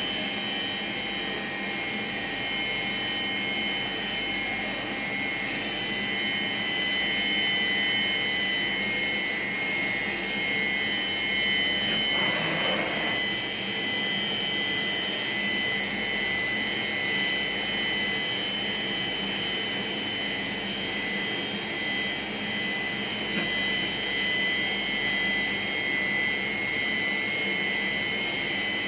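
CNC machine running: a steady high whine made of several held tones over a noisy hiss, with a brief louder rush of noise about twelve seconds in.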